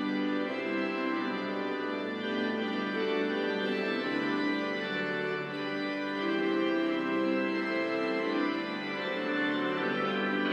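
Organ music playing slow, long-held chords.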